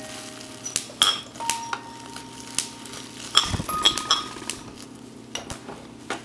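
Irregular metallic clinks and knocks, like cutlery and dishes, several leaving short ringing tones, with a brief low rumble around the middle.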